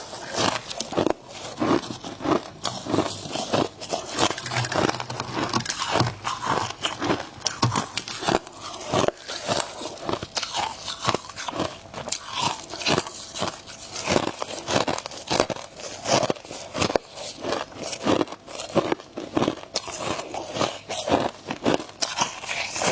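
A person biting and chewing mouthfuls of freezer frost close to the microphone: a dense run of crisp crunches, several a second, without a break.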